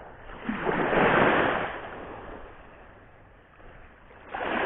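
Sea waves breaking and washing on the shore: one surge swells up about a second in and fades away, and another rises near the end.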